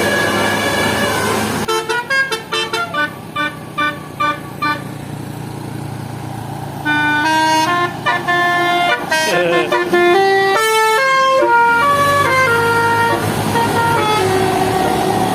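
Bus basuri telolet horn playing a melody: first a run of quick short toots, then a longer tune of held notes stepping up and down, over a bus engine running.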